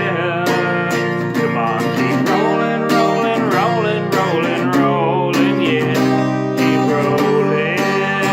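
Acoustic guitar strummed in a steady rhythm, with a melody line that bends in pitch over the chords.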